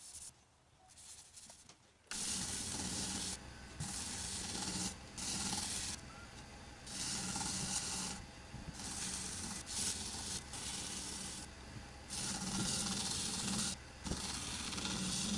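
Paper towel loaded with shine juice friction polish pressed against a catalpa box spinning on a wood lathe: a hissing rub that comes in repeated strokes of a second or so, the first about two seconds in. The lathe runs underneath with a steady low hum.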